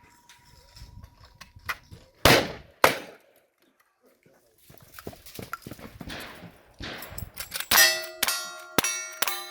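Gunfire on a cowboy action shooting stage, with bullets striking steel targets that clang and ring. Two loud shots come a couple of seconds in, about half a second apart. Near the end a quick string of shots follows, roughly two a second, each with the steel plates ringing on.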